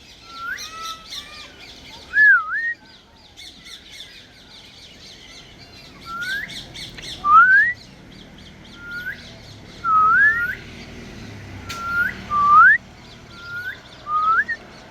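African grey parrot whistling: about a dozen short whistles, most sliding upward and a few curling down then up, with gaps of up to a few seconds between them. A dense high chirping carries on underneath throughout.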